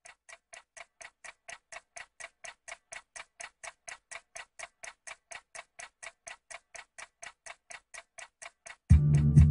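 Rapid, even clock-like ticking, about five ticks a second, growing louder over the first second or so. Near the end, electronic music with a heavy beat cuts in loudly over it.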